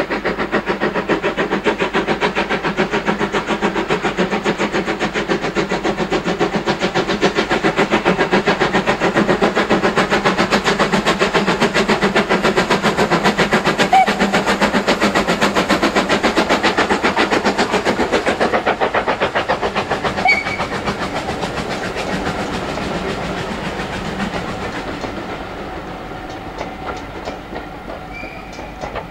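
A train running close by with a fast, even rhythm, then moving away, its sound fading over the last several seconds.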